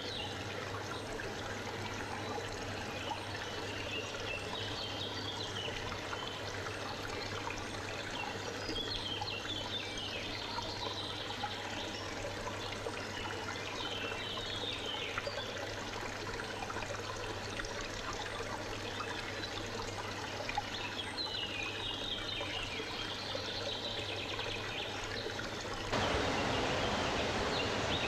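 Forest ambience: a small stream trickling steadily, with small birds singing short chirping phrases that come and go. About two seconds before the end the sound switches abruptly to a louder, fuller steady rush.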